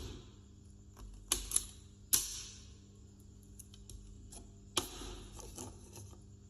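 A few sharp, irregularly spaced knocks and clicks, the loudest about two seconds in with a brief ringing tail, over a steady low hum.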